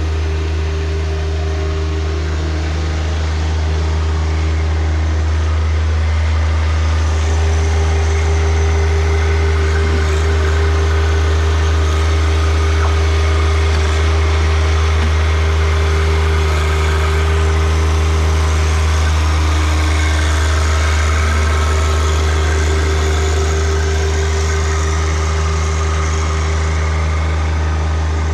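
John Deere 1025R compact tractor's three-cylinder diesel engine running steadily, a little louder from about four seconds in.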